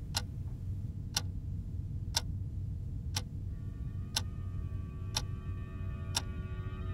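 Wall clock ticking slowly and evenly, one tick a second, seven ticks, over a low steady hum.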